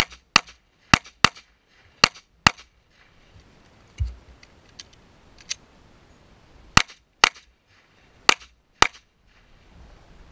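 A pistol fired ten times in quick double taps, five pairs of sharp shots. Three pairs come close together at the start, and two more follow after a pause of about four seconds. The pause holds a dull thump and a few faint clicks.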